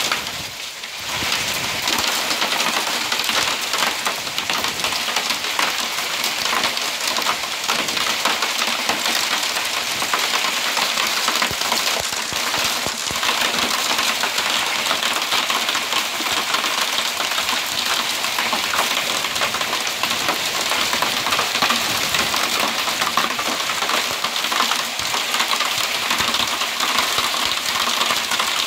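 Heavy rain mixed with small hailstones pelting a terracotta tiled roof: a dense, steady hiss of countless tiny impacts.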